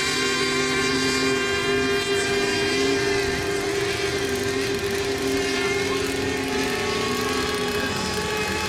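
Several radio-controlled racing boats running on the water, their high engine notes rising and falling as they circle.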